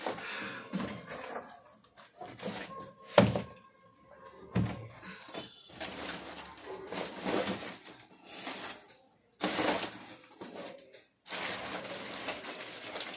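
Cardboard box and plastic packaging being handled and shifted: scraping and rustling in irregular bursts, with one sharp thump about three seconds in.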